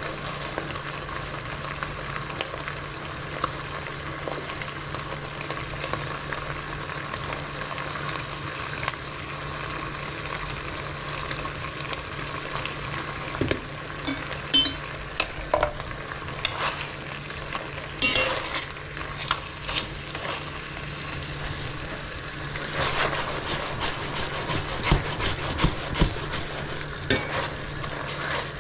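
Chicken breast sizzling steadily in a frying pan with the pasta water it was deglazed with, with scattered sharp clicks and knocks, more of them in the second half.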